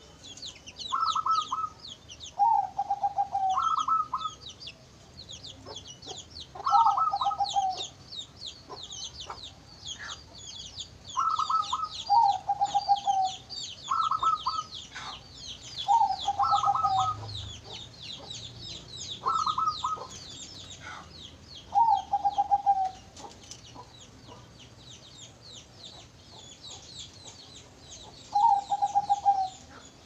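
Zebra dove (perkutut) singing: short stuttering coos repeated every second or two, with a gap of several seconds near the end. Throughout, small birds keep up a dense, high-pitched chirping.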